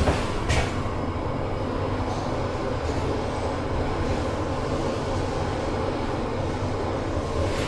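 Toshiba Spacel EX rope-traction passenger elevator car travelling upward, heard from inside the car as a steady low rumble and hum. A light click about half a second in.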